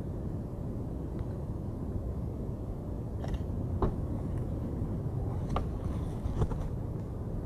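Steady low rumble of a large, violent tornado's roar mixed with strong wind, with a few faint brief clicks and knocks in the second half.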